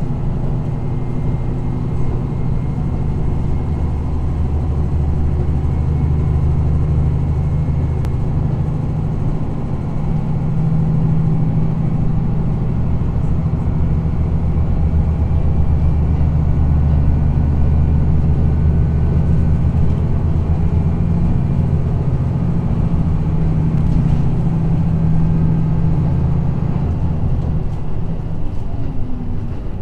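Inside a KiHa 54 diesel railcar: the diesel engine drones steadily under the floor together with the rumble of the running gear as the train travels. The drone swells a little in the middle and eases slightly near the end.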